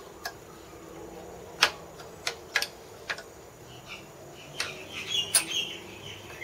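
Scattered sharp metallic clicks and taps as the clamped aluminium headstand casting and its locking-plier clamps are shifted by hand during alignment, with a short high chirping sound about five seconds in.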